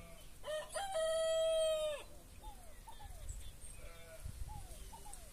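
A rooster crowing once: a single long call held for about a second and a half, then dropping off. Short falling chirps from another bird repeat around it, a few each second.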